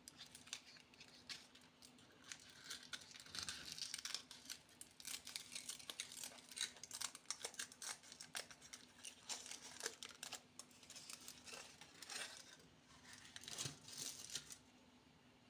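Plastic candy wrappers being crinkled and torn open: a dense run of crackles that stops near the end.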